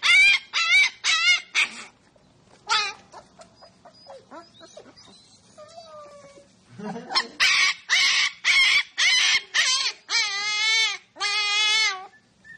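Siberian husky puppy crying out in short, high, wavering yelps in two runs. It ends with two longer wavering howls.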